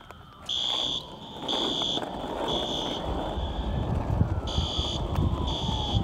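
A building fire alarm sounding in the temporal-three pattern: three half-second high electronic beeps, a pause, then three more. Behind it a fire engine's siren wails, slowly rising and falling, and a low rumble builds from about halfway through.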